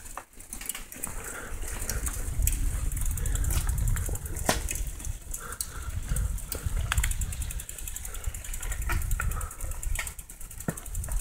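Low wind rumble on the microphone and tyres rolling over a dirt trail while riding a bike, with scattered clicks and rattles from the bike.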